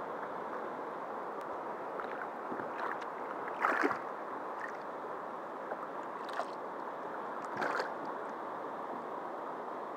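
Kayak on the open ocean: a steady rush of water with a few splashes of a paddle dipping in, the clearest about four and eight seconds in.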